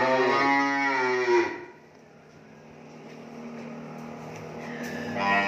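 A cow mooing: one long, low call that ends abruptly about a second and a half in.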